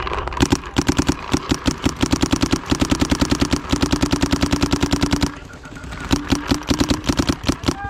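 Electronic paintball marker firing two rapid strings of shots, about ten a second: a long string of about five seconds, a short pause, then a second string of about a second and a half.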